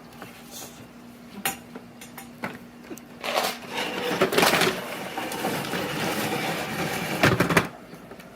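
A few separate clicks, then about four seconds of rattling, clattering handling noise with sharp knocks that stops abruptly near the end.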